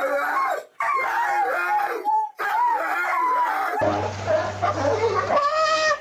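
A dog howling in long, wavering calls, broken by two short pauses. About four seconds in, the sound cuts to a different recording with a steady low hum and another animal's rising call.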